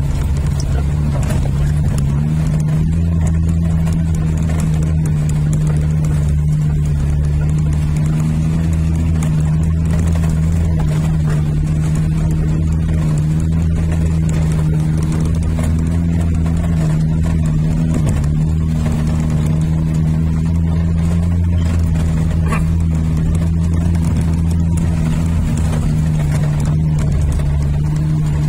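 Suzuki Jimny 4x4's engine running at a steady pitch, a loud low drone heard from inside the cab while driving.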